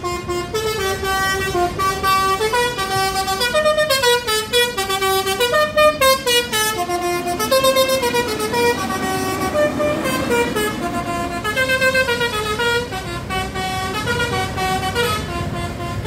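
Bus 'telolet' multi-tone horn playing a tune: a continuous run of held notes, several tones sounding together, stepping to a new pitch every half second or so, over the rumble of the bus.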